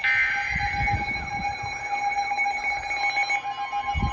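Emergency Alert System attention tones from several alerts sounding at once. Steady alert tones run throughout, with a rapidly repeating warbling sweep over them, and another steady tone joins about three and a half seconds in.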